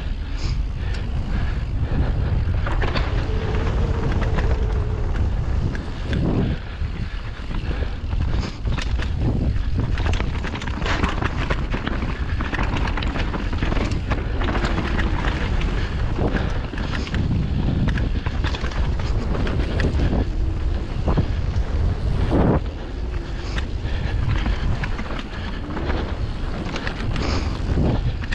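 Steady wind rumble on the microphone of a mountain bike riding downhill, with frequent sharp rattles and knocks as the bike runs over rough trail.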